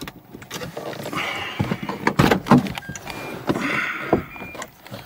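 Rustling, clicks and knocks of someone moving about in a car's cabin, in two busy spells.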